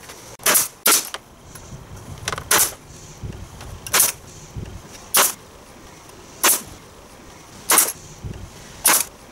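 Pneumatic nail gun firing nails into a wooden frame: about eight sharp shots, roughly a second apart, two of them close together early on.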